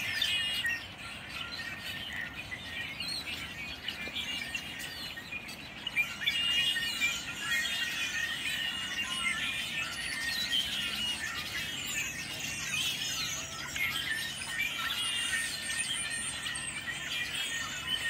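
A large flock of birds calling all at once: a dense, unbroken chorus of overlapping high chirps and squeaks, growing louder about six seconds in.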